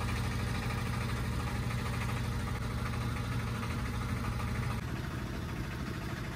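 Engine of a hired tourist boat running steadily while under way, a constant low hum that eases slightly about five seconds in.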